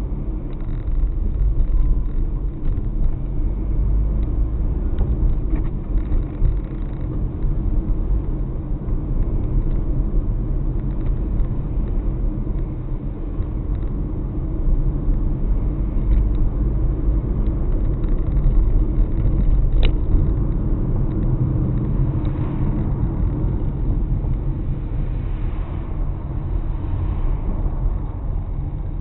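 Steady low rumble of a car driving, with road and engine noise heard from inside the car. A single brief click comes about two-thirds of the way through.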